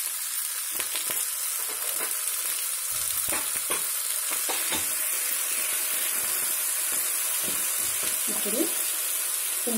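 Capsicum, garlic and shallots sizzling in hot oil in a non-stick frying pan while freshly added red chilli paste is stirred in. A spatula scrapes across the pan in short strokes over a steady sizzle.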